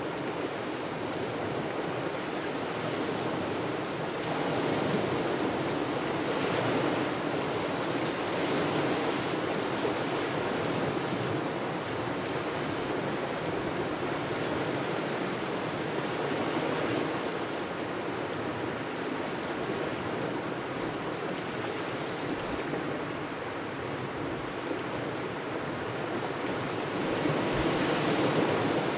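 Small waves washing on the shore in a steady wind, as a continuous rush that swells a little now and then.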